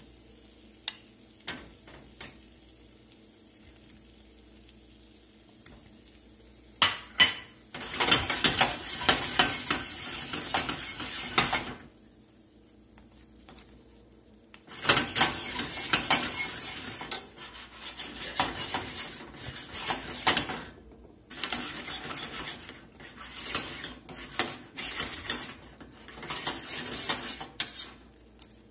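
Metal tongs clicking and scraping against a skillet as whole shrimp are turned and butter is stirred into the sauce, which sizzles underneath. The first few seconds hold only a few light clicks; about seven seconds in come two sharp clacks, then long spells of stirring and scraping with a short lull partway through.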